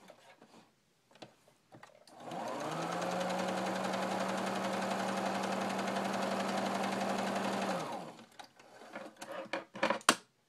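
Electric sewing machine stitching a seam: it speeds up about two seconds in, runs steadily for about five and a half seconds, then winds down. Light handling clicks come before and after it, with a sharp click near the end.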